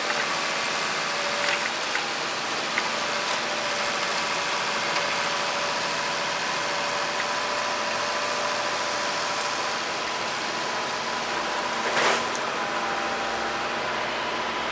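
WSM Model 5472BHCP horizontal grinder running steadily as it grinds biomass feedstock, a continuous machine drone with a steady hum, a few sharp knocks of material and one louder crack about twelve seconds in.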